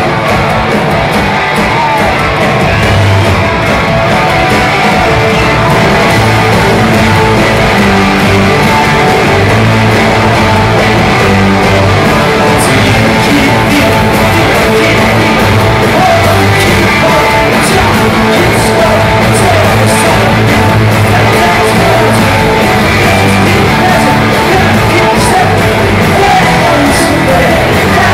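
Live rock band playing loud, with electric guitars, bass, drums and singing, heard from the audience in a large hall.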